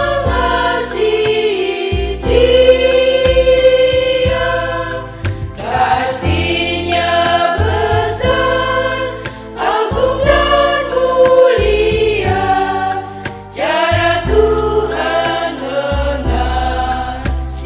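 Women's choir singing an Indonesian church hymn together, holding each note for a second or two, over an instrumental backing with low bass notes.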